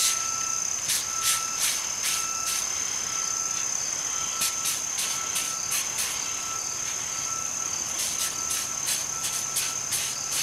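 Insects calling: a steady high-pitched cricket trill, with short raspy high pulses coming in irregular groups over it and a fainter short chirp repeating about every half second.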